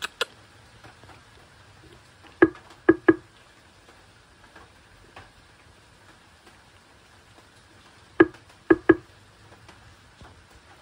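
Sharp taps or knocks in two quick groups of three, one a couple of seconds in and one about eight seconds in, over a faint steady background.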